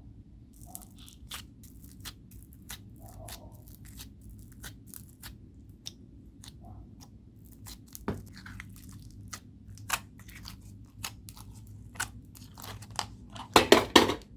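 Hands squishing and stretching homemade slime: a run of irregular sharp sticky clicks and pops, with a louder burst of crackles near the end.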